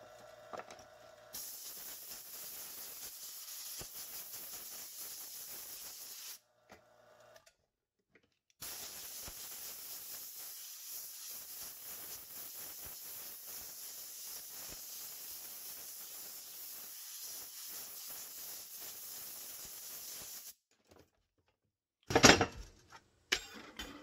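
Compressed-air blow gun hissing in two long blasts, about five seconds and then about twelve, blowing onto a freshly vacuum-formed plastic sheet to cool it. Near the end come a few sharp, loud knocks.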